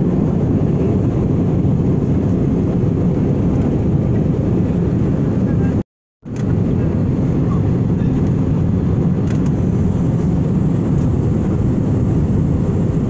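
Steady low rumble of jet engines and rushing air heard inside an Airbus A320-family airliner cabin in flight. The sound cuts out completely for about half a second near the middle, then resumes the same.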